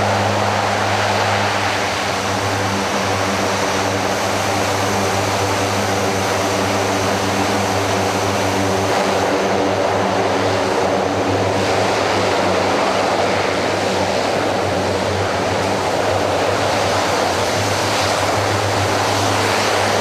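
Lockheed C-130J-30 Super Hercules turboprop engines and propellers running steadily as the aircraft rolls slowly past close by. The drone is even, a low hum with a hiss above it.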